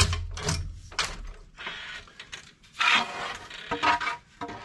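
Wooden boards knocking and scraping as they are handled and laid down on a concrete floor: several sharp knocks in the first second, a longer scrape about three seconds in, and more knocks near the end.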